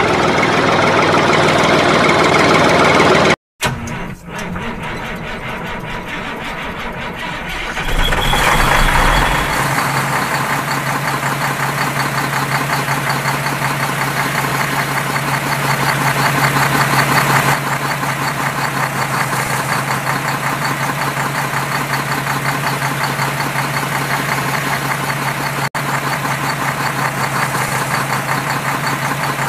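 Steady engine sound like a truck engine idling, with a brief dropout a few seconds in and a change in tone about eight seconds in.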